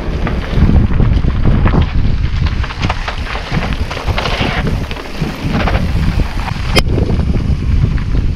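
Wind buffeting an action camera's microphone while a mountain bike is ridden fast over a dirt trail, with the bike's rattles and knocks over the rough ground. A single sharp click about seven seconds in.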